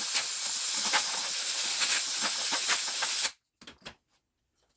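A pressurised spray jet hissing loudly and steadily while the pump parts are cleaned, then cutting off suddenly after about three seconds. Two short knocks follow.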